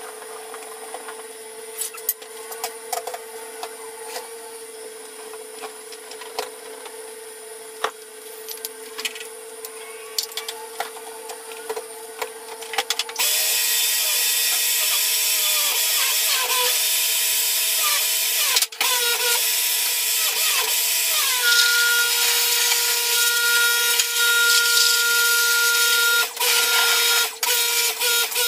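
Electric pressure washer starting up about halfway through and running loudly with a whining motor and spraying water, cutting out briefly a few times as the trigger is let go. Before it starts, a steady low hum with small clicks and knocks as the machine is handled.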